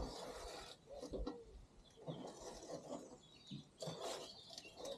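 Scattered rustling and knocking from handling, with birds chirping faintly in the background.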